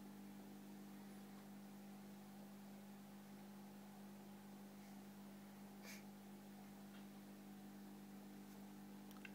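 Faint, steady hum of an aquarium's internal filter pump, with a few faint clicks about six and seven seconds in and near the end.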